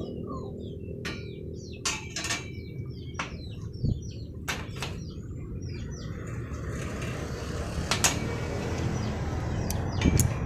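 Scattered sharp metallic clinks and taps, about ten, as steel workpieces are handled: a rusty steel disc and a locking C-clamp against steel bar and pipe. Behind them are small birds chirping repeatedly and a steady low background noise.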